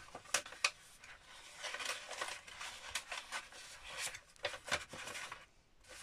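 Paper pages of a handmade book being folded and tucked in by hand: springy recycled coffee-cup paper rustling, with sharp crackles and clicks and a short pause near the end.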